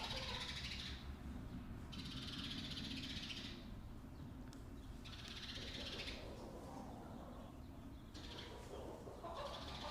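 Chickens in a barn calling in repeated bursts of a second or so, several times, over a steady low rumble.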